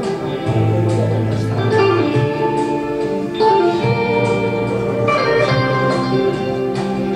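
Instrumental music with held chords that change every second or two.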